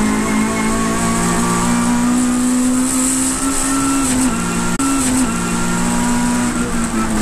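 Saloon race car's engine at full throttle, heard from inside the cockpit, its note climbing steadily with speed, with a gear change about two-thirds of the way through.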